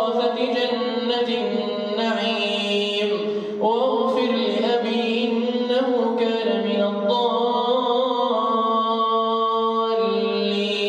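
A male Quran reciter chanting in the melodic tajweed style, drawing out long held notes. His pitch glides up to a new note about a third of the way in.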